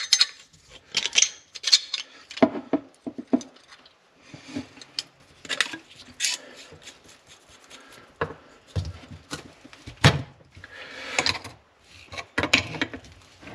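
Irregular metallic clinks, taps and scrapes of copper pipe and a brass fitting being handled and pushed onto a plumbing isolation valve. Near the end, two pairs of pliers clatter onto the fitting to hold and tighten it.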